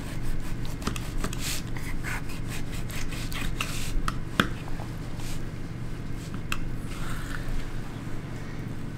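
Kitchen knife slicing and scraping through a raw bison heart on a plastic cutting board: irregular cutting strokes with sharp taps of the blade on the board, one louder click about four seconds in. A steady low hum sits underneath.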